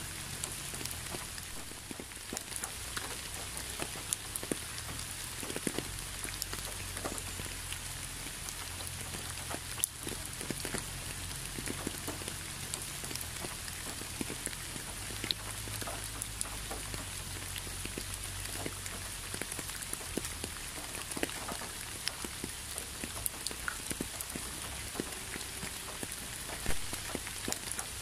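Steady rain falling, with many separate drops tapping sharply on a surface against an even hiss of rainfall. One louder drop lands near the end.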